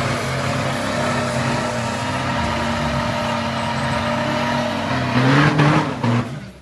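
Toyota HiAce Commuter drag van doing a burnout: its engine held at steady high revs with the tyres spinning, then revving higher about five seconds in and dropping away just before the end.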